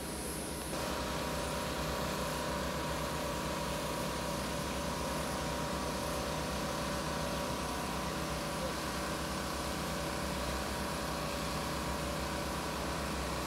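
Excavator engine running steadily at a constant pitch.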